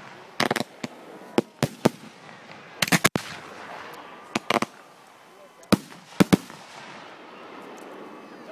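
Aerial fireworks shells bursting in a rapid, irregular series of sharp bangs, about fifteen of them, some in quick clusters of two or three. The bangs stop about two seconds before the end, leaving a faint steady background.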